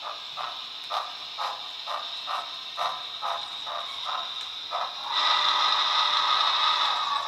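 Onboard sound system of an HO-scale Broadway Limited Southern Pacific cab-forward model steam locomotive playing slow steam chuffs, about two a second, through its small speaker as the model creeps along. About five seconds in, the chuffs give way to a louder steady hiss.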